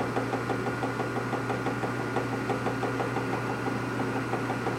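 Machine tool running in a machine shop, a steady hum with a fast, even ticking, while a part for a flywheel truing tool is machined.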